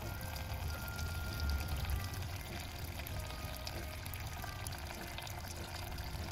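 Thin stream of windshield washer fluid draining from the washer reservoir and splashing steadily into a bucket of fluid.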